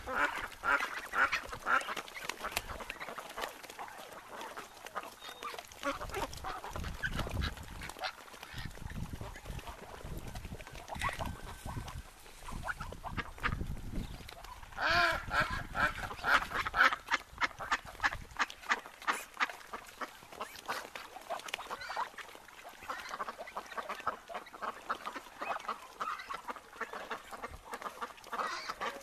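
A group of wild ducks quacking over and over, many short calls overlapping, busiest near the start and again about halfway through, with a low rumble underneath in the middle stretch.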